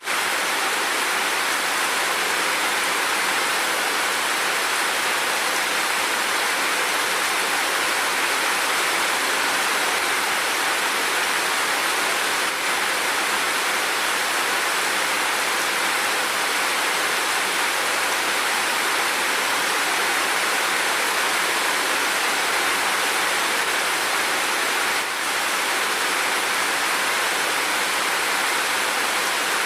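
Steady, even rain falling, a dense hiss of many drops with no single drops standing out.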